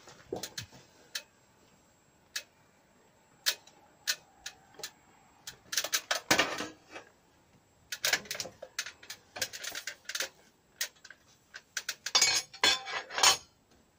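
Sharp clicks, taps and light metallic rattles in scattered flurries, loudest about six seconds in and near the end: hand tools knocking on a wooden roof brace as it is measured, and an aluminium stepladder being handled.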